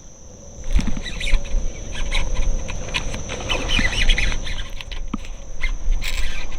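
Irregular splashing and clicking as a hooked bass fights on the line, with a denser run of rapid clicks in the middle, over a steady high insect buzz.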